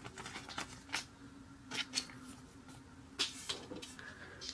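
Trading cards being handled and slid into plastic card sleeves: a few short, light rustles and clicks, about a second, two seconds and three seconds in, over a faint steady hum.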